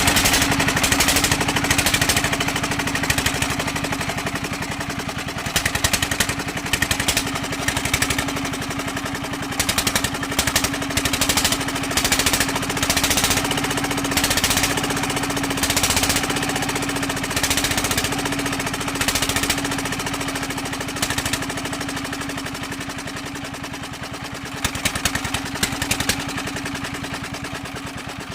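Single-cylinder 'dompeng' diesel engine running, a rapid steady knocking beat of firing strokes over a constant hum, swelling slightly louder now and then.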